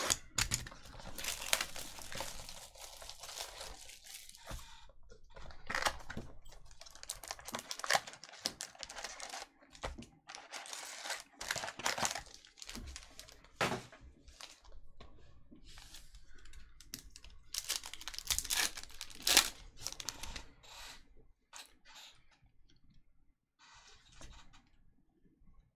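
Trading-card packaging being torn open and crinkled: a card box's pull strip and foil card packs ripped and rustled by hand, in irregular sharp rips and crinkles, with cards slid between the hands near the end.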